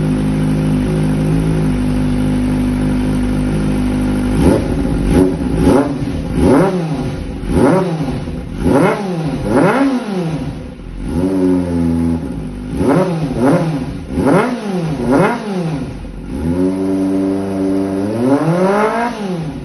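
Kawasaki ZX-25R's 250 cc inline-four engine held at a steady note for about four seconds. It is then revved in quick throttle blips, about ten sharp rises and falls in pitch, and one longer rev climbing high near the end.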